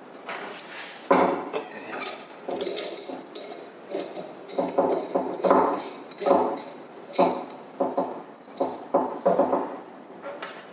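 Aluminium frame parts of a CNC 3018 mini milling machine kit knocking and clinking together as they are handled and fitted: a string of short metallic knocks, starting about a second in.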